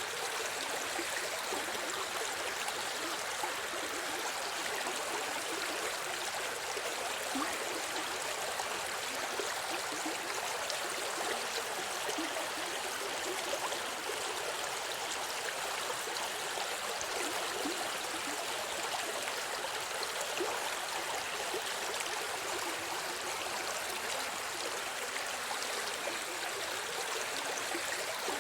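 Forest river flowing steadily over rocks, a constant rushing with fine gurgles and splashes.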